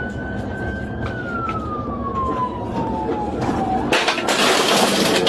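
Police car siren wailing, its pitch falling slowly, over the engine and road noise of a patrol car in a high-speed chase. About four seconds in, a loud rushing noise swells over it.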